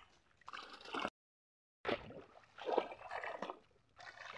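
Shallow pond water splashing and sloshing in short bursts as a person wades and reaches into weedy water by hand, with a brief dead-silent gap a little over a second in.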